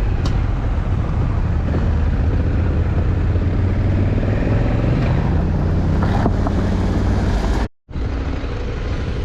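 Honda Africa Twin motorcycle's parallel-twin engine running steadily while riding, with wind and tyre rush mixed in. The sound cuts out completely for a split second about three-quarters of the way through.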